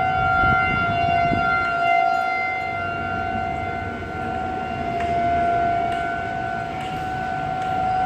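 Outdoor civil-defense warning siren sounding a steady, unwavering tone for its scheduled test, its loudness slowly rising and falling.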